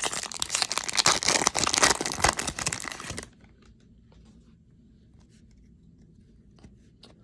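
A baseball card pack's wrapper being torn open and crinkled, a loud dense crackle for about three seconds. Then only a few faint ticks of the cards being handled.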